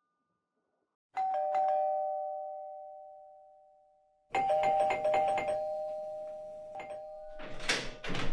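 Electric two-tone "ding-dong" doorbell chime, rung twice: once about a second in and again about three seconds later, each time a higher note falling to a lower one and slowly dying away. Near the end comes a loud burst of handling noise as the door is unlocked.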